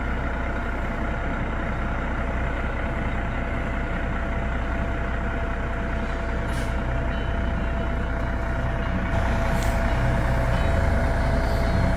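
Fire engine's diesel engine running as the truck moves slowly forward, growing louder near the end as it comes closer.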